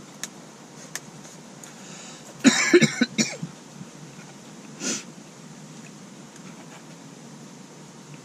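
A person coughing several times in a quick burst, followed by one shorter cough or exhale, with a couple of faint clicks before it.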